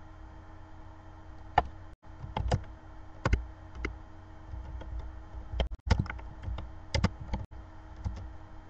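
Computer keyboard keys tapped in short irregular runs, several quick clicks at a time with pauses between, as words are typed.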